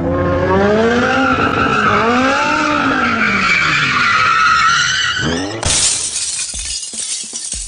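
Car drifting sound effect: the engine revs rise and fall while the tyres squeal, then a sudden loud noisy burst about five and a half seconds in that fades into scattered clicks.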